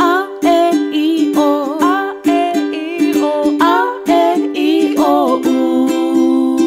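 Ukulele strummed in a steady rhythm, with a sliding sung melody over the chords.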